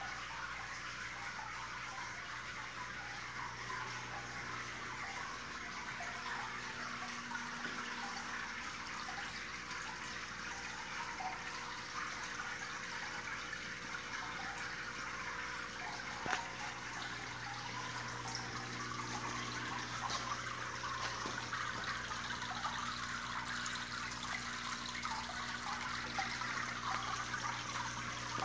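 Water sheeting down the silver mirror face of a wall fountain and falling into its river-rock basin: a steady trickling splash, with a low hum underneath. A single knock comes about halfway through.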